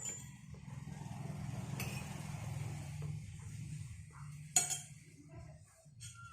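Cutlery clinking against dishware twice, the second clink the loudest, over a steady low rumble that swells and then fades.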